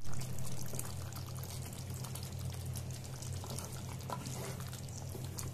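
Thick chicken curry bubbling and crackling in a pan, over a steady low hum.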